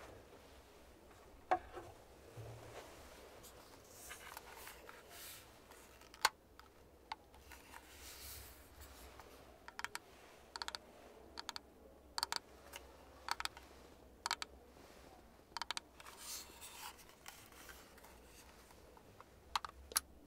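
Sharp snips and clicks close to the microphone, often in quick pairs: hairdressing scissors trimming the front bangs, then a pink Vodana flat iron being handled, its plate lock clicking.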